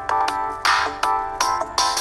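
Background music: an electronic track with quick, bright synth notes over a steady beat.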